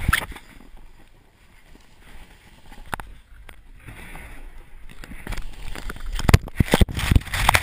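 Snowboard riding through deep powder, picked up by a handheld action camera's microphone: rushing snow and wind noise with knocks and bumps on the camera housing, growing louder and busier from about five seconds in.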